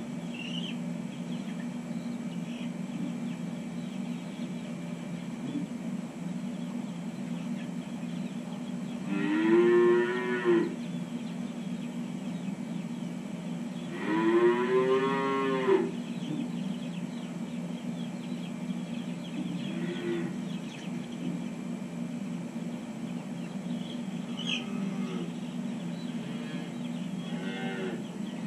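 Holstein calves mooing, with two loud drawn-out calls about nine and fourteen seconds in and a few fainter calls near the end, over a steady low hum.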